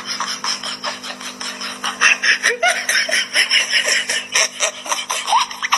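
Hearty laughter in quick repeated peals over a steady low hum.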